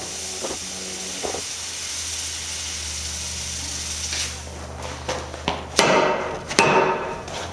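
The white-hot end of a large steel bar being rammed down onto a steel floor plate to upset it: a few light knocks, then two loud ringing metal strikes about a second apart near the end, over a steady low hum.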